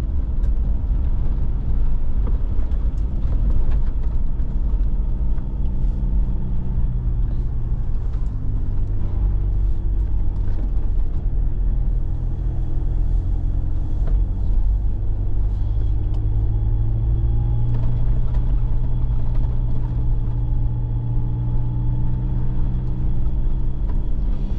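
4x4's engine running under load as it climbs a snow-covered mountain track, heard from inside the cabin, its note rising and falling a little with speed.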